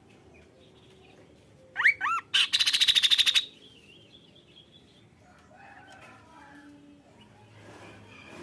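Kaso-kaso bird calling: two quick upward-sweeping whistled notes, then a loud fast rattle of about ten clicks a second lasting about a second.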